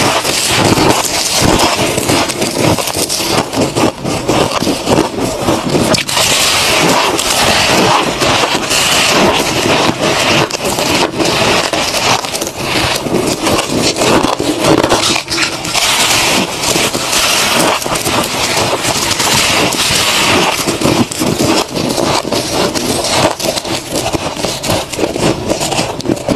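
Close-miked crunching of fluffy freezer frost being bitten and chewed, a dense, continuous crackle of many small crunches, mixed with the crumpling of frost squeezed in gloved hands.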